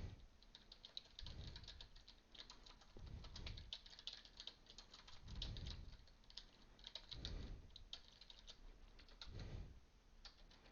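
Faint typing on a computer keyboard: a quick, uneven run of light key clicks.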